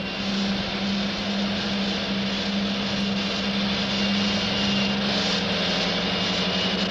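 Project 205 missile boat's engines running underway: a steady mechanical drone with a constant low hum and a faint high whine.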